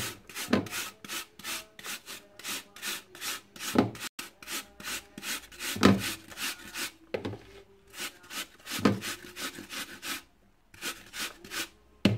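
Peeled apple rubbed up and down the coarse side of a plastic hand grater: rapid, regular grating strokes, about three a second, with a brief pause near the end.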